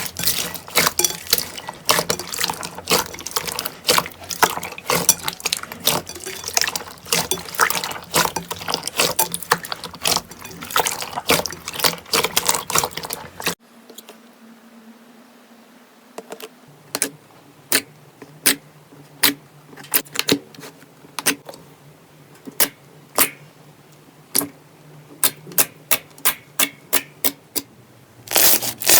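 Slime being squished and worked by hand: a dense run of wet clicking and crackling, which changes abruptly about halfway to separate sharp pops or clicks, roughly one or two a second.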